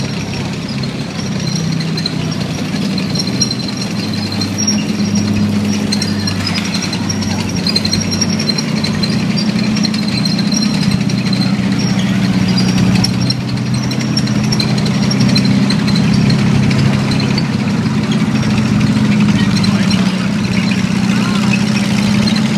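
M4 Sherman tank and a second World War II tracked vehicle driving slowly past, their engines running with a deep, steady drone that grows louder as they come alongside.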